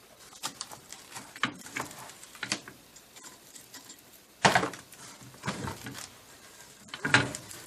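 Metal parts of a three-speed manual transmission clinking and knocking as they are handled and shifted, with one louder clank about four and a half seconds in and another near the end.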